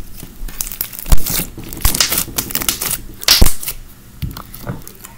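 Clear slime packed with foam beads being squeezed and pressed by hand: an irregular run of sticky crackles and bubble pops, two of them much louder, about a second in and past the middle.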